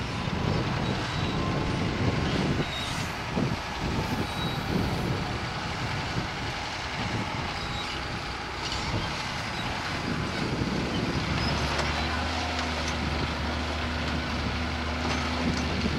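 Farm tractor running under load while ploughing, a rough uneven rumble; about two thirds of the way through a steady low engine drone comes in.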